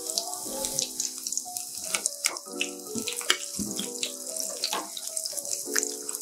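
Halved bread pakoras deep-frying in hot oil: a steady sizzle with scattered crackles, during a brief second fry to crisp them. Background music of held notes plays alongside.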